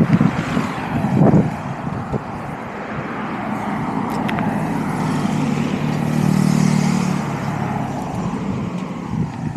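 A motor vehicle passing along the road: engine hum and tyre noise build, are loudest a little past the middle, then fade.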